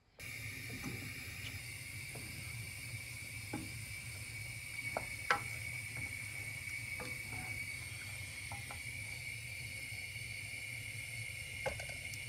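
Wooden spoon stirring baked beans in a stainless steel saucepan, with a few faint knocks against the pot, over a steady kitchen hiss with a thin high tone.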